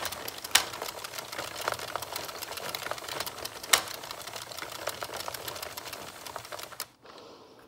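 Circular knitting machine being cranked: rapid plastic clicking and rattling as its needles ride up and down through the carriage cam, with two sharper clicks. The clicking stops abruptly about seven seconds in.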